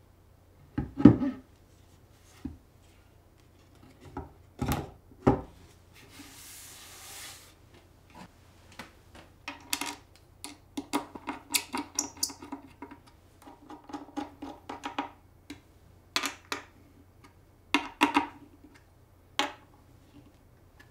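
Handling sounds of a trim router and an acrylic insert plate being fitted into a plywood router table: a sharp knock about a second in, a few more knocks and a short rub. After that comes a long run of quick clicks and creaks as a hand screwdriver turns screws into the plate.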